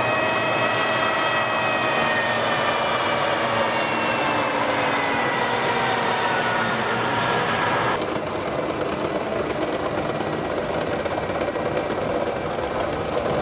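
M1A1 Abrams tank running close by, its AGT1500 gas turbine whining over the clatter of its tracks. The whining tones slide slowly lower for about eight seconds, then the sound changes abruptly to a steadier, duller rumble.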